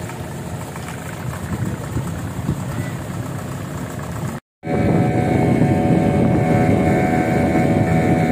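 Outboard motor of a small wooden river boat running, with a low rumble mixed with wind and water. About halfway through it cuts off abruptly for a moment. Then the engine of a boat underway runs louder and steadily, with a steady whine over the rumble.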